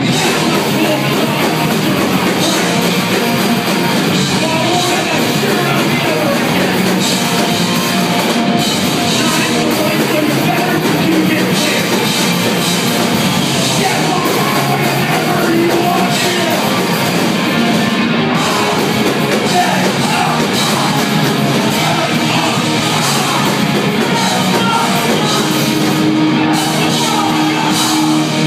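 Hardcore punk band playing live at full volume: distorted electric guitars, bass and a drum kit, with a vocalist singing into a microphone, heard through a club's PA.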